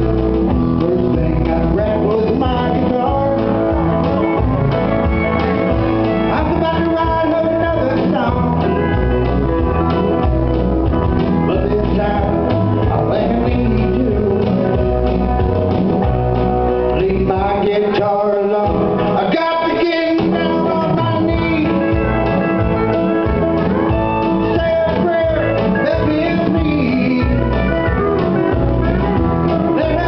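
Live country band playing a song with a singer, acoustic guitar and a steady bass beat; the bass drops out briefly a little past the middle.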